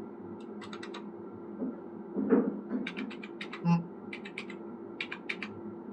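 Computer keyboard keys tapped in quick clusters as a phone number is typed in. Two short, louder, lower-pitched sounds come in the middle, about two and a half and three and a half seconds in.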